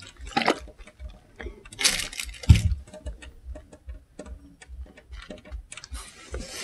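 Fabric rustling and handling noise as a cotton pressing cloth is lifted and drawn back off a freshly ironed-on fabric appliqué. There are short rustles and a dull thump a little over two seconds in.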